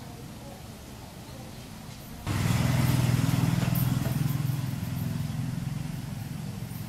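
An engine running, cutting in abruptly about two seconds in with a low hum and some hiss, then slowly fading.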